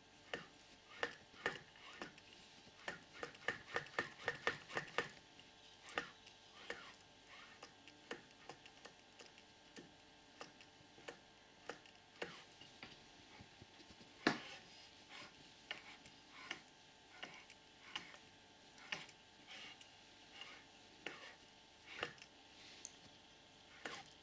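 Light metallic clicks and ticks from the crankshaft and connecting rod of a freshly fitted Malossi 70cc cylinder kit as the crankshaft is turned over, a click coming at the top of the piston's stroke. They come irregularly, with a quick run of them a few seconds in and one louder knock in the middle. The owner is unsure whether the noise is normal.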